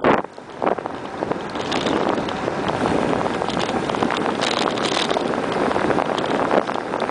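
Wind rushing over the microphone of a camera on a moving bicycle. The noise dips briefly near the start, then holds steady.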